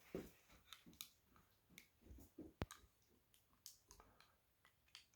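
Faint, scattered clicks and soft taps, with one sharper click about two and a half seconds in, from a cat playing with a toy rabbit.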